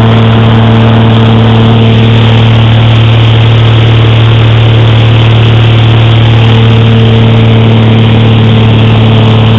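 Light high-wing airplane's piston engine and propeller running steadily in cruise, heard loud from inside the cabin: a constant low hum with an unchanging pitch under a wash of noise.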